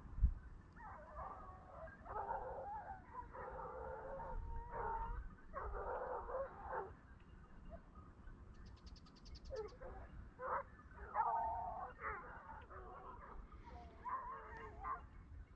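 Hunting dogs baying and yelping in repeated bouts during a wild boar drive, the cry of the pack working the cover. A single sharp thump right at the start.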